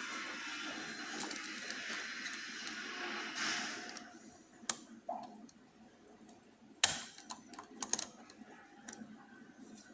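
Lock picking: a pick and tension tool working inside a lock cylinder. A steady scraping rustle for the first few seconds, then a few sharp metal clicks and taps, the loudest about seven seconds in.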